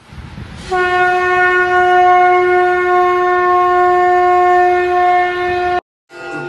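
Conch shell (shankh) blown in one long, steady note. It follows a brief hiss, is held for about five seconds, then cuts off abruptly.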